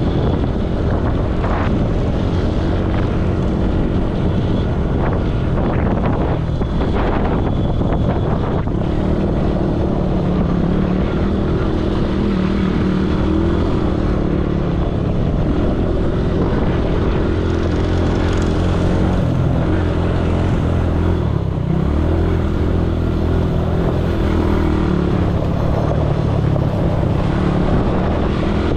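ATV engine running steadily while being ridden, its note shifting only a little.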